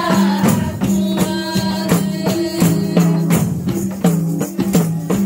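A group of girls singing together in unison, holding notes that step up and down, over a steady beat of frame drums.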